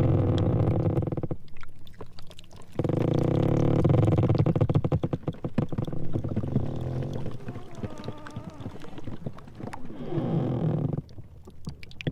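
Sea ice floes grinding against each other: a low, pitched groaning with a rapid stuttering pulse, broken off twice, and a fainter wavering squeal around the middle as the ice rubs.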